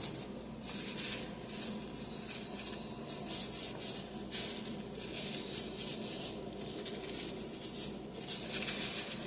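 Dry seasoning shaken from a shaker container onto a raw T-bone steak: repeated short rattling hisses at uneven intervals.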